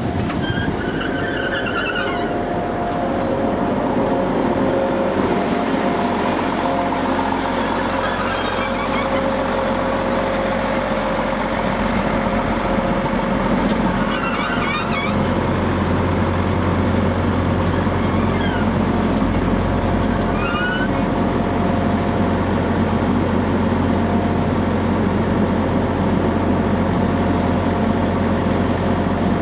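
Arriva Trains Wales Class 175 diesel multiple unit's engines running steadily beside the platform, with a deeper, louder engine drone setting in about halfway through. Several short, high chirps are heard over the top.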